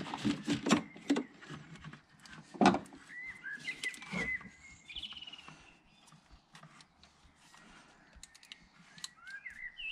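Scattered clicks and knocks of gloved hands working wiring and plastic parts in a car's engine bay, the loudest knock near three seconds in. Birds chirp a few times in the background, around four seconds in and again near the end.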